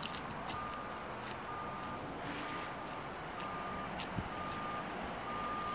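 A vehicle's reversing alarm beeping steadily: one short, high single-tone beep about every second.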